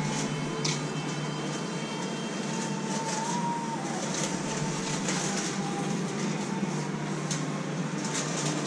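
Steady background hum and hiss, with a few faint clicks.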